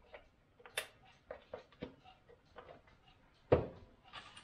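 Small kitchen clicks and taps, then a single loud knock about three and a half seconds in as a milk carton is set down on the counter, followed by a brief rustle.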